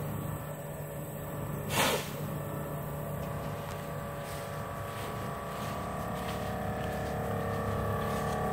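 Air compressor on an Idaho Tote dolly trailer running steadily as it fills its air tank for the trailer's reverse steering, slowly growing louder. A short hiss of air about two seconds in.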